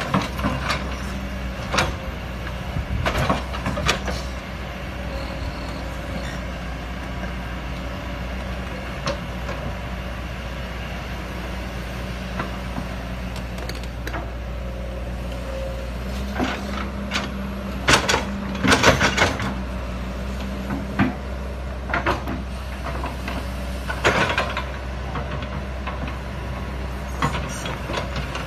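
Kobelco SK210 hydraulic excavator's diesel engine running steadily, with scattered sharp knocks and short bursts of clatter over it, most of them about two-thirds of the way through.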